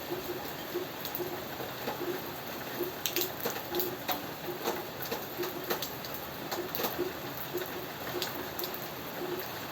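Steady rain falling, with single drops ticking sharply and irregularly close by. A short, low note repeats unevenly underneath the rain.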